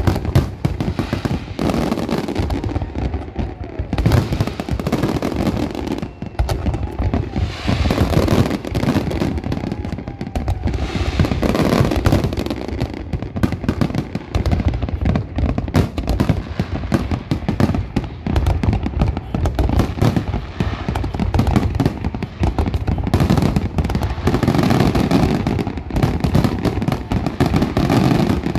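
Aerial fireworks display: a dense, unbroken barrage of shell bursts, deep bangs and crackling.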